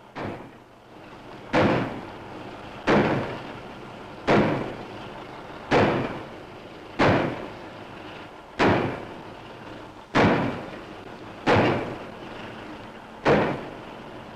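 Pile driver's hammer striking a square concrete pile in a steady run of heavy blows, about one every second and a half, each with a short ringing tail, as the pile is driven down through soft ground.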